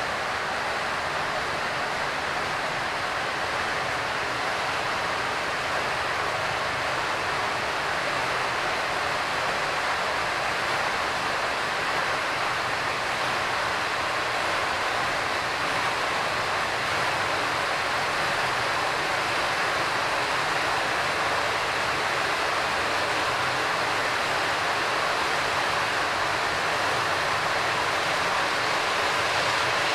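OO gauge model train, a Hornby Class 50 locomotive hauling a long rake of coaches, running along the track with a steady rushing rumble of wheels on rails. The noise grows slightly louder.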